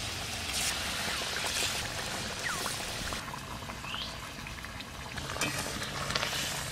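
Curry gravy boiling hard in a wok, bubbling and hissing steadily. Pieces of fried vetki fish are slipped into it one after another.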